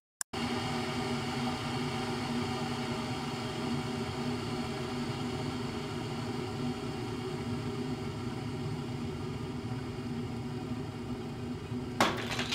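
Kitchen appliance running with a steady hum and rushing noise, with a sharp, click-like louder burst about twelve seconds in.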